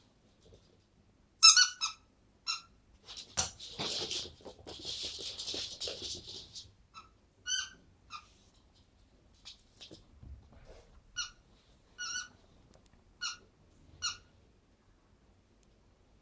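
Dog chewing a squeaky donut toy: a string of short, high squeaks, several close together near the start and then single squeaks spaced about a second apart near the end. In the middle there are a few seconds of scuffling and rustling.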